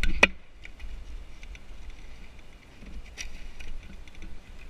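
A single sharp knock, like a hard strike on wood, about a quarter second in, with a brief ring. After it come light rustling and a few small clicks of footsteps moving through dry brush and forest litter.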